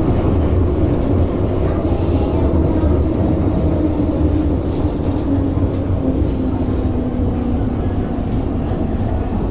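Inside an MTR metro train slowing into a station: a steady low rumble of wheels and running gear, with a motor tone that falls in pitch as the train brakes.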